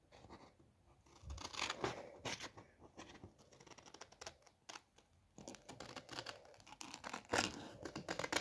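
Scissors cutting a sheet of printer paper, in short, irregular snips with paper rustling in between.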